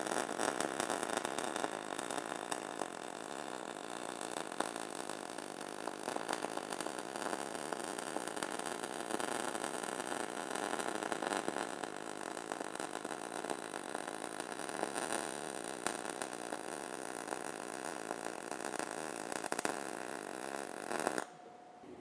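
MIG welding arc on 1/4-inch steel plate under C25 argon/CO2 shielding gas, with the wire fed at 325 inches per minute at 21 volts: a continuous crackling sizzle. It cuts off suddenly near the end when the trigger is released and the bead is finished.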